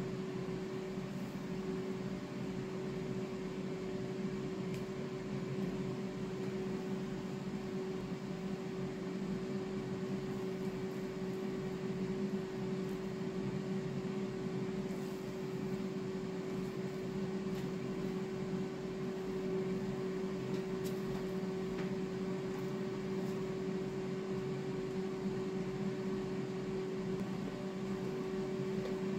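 Steady mechanical hum with a constant tone, as from a fan or running appliance, with a few faint light ticks.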